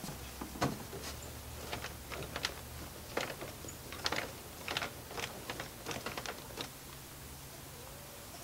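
A paint roller clicking and knocking against a paint pan that is too narrow for it: a run of irregular light clicks and taps.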